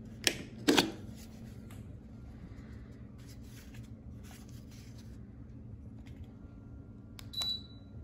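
Plastic ceiling-fan remote pulled out of its wall holder with two sharp clacks, over a low steady hum. Near the end a button click and a short high beep from the fan's receiver as it takes the command and the light comes on.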